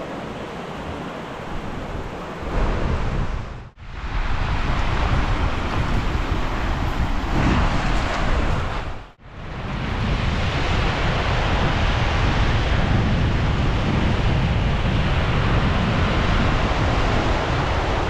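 Baltic Sea surf washing over a stony shore, with wind rumbling on the microphone. The sound cuts out briefly twice, about four and about nine seconds in.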